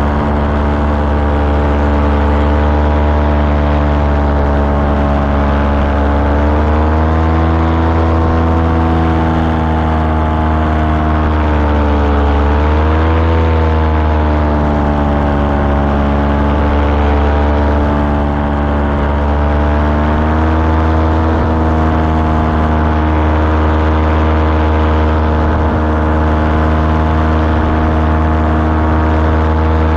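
Small aircraft engine running steadily, its pitch rising and falling gently a few times, most noticeably about a third of the way in, with a constant rush of noise underneath.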